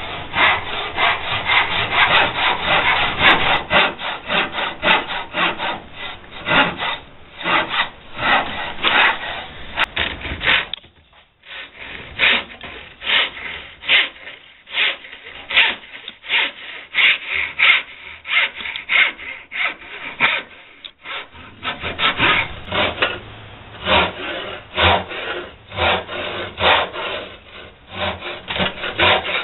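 Hand backsaw with a folded brass back rip-sawing down the cheeks of a tenon, then crosscutting its shoulder, in quick back-and-forth strokes through the wood. The sawing stops briefly about eleven seconds in, then resumes.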